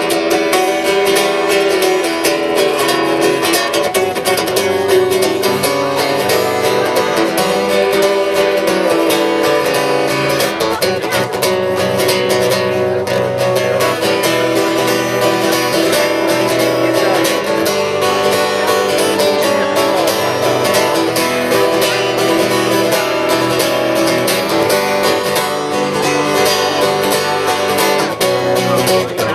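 Acoustic guitar strummed steadily in an instrumental break of a song.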